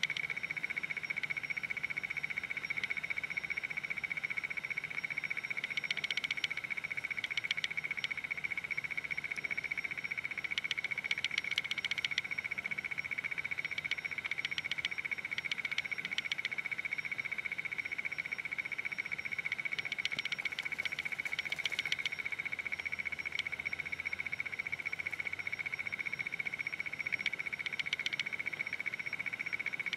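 A steady, high-pitched pulsing trill from a chorus of small calling animals. Bursts of rapid clicking from other callers break in several times.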